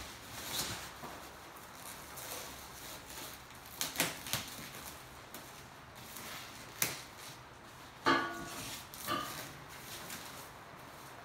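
Plastic and foam packing wrap rustling as parts are pulled out of a cardboard box, with a few sharp knocks of parts against each other and, about eight seconds in, a couple of short rubbing squeaks.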